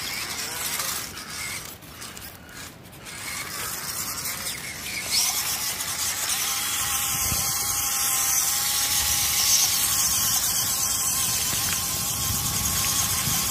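WPL C14 RC pickup truck's small electric motor and gearbox whining as it drives, holding a steady pitch, louder from about five seconds in.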